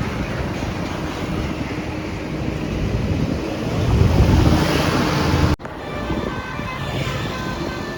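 Wind buffeting the microphone over vehicle noise. After an abrupt cut about five and a half seconds in, a bus's telolet horn begins playing short tooting notes at several pitches.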